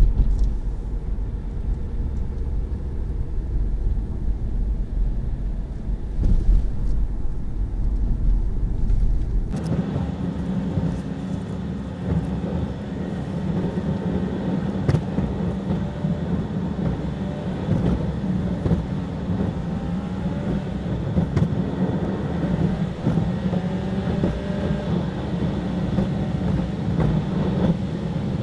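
A car being driven, heard from on board: steady engine and tyre-road noise. About ten seconds in, the sound changes abruptly from a deep low rumble to a higher drone.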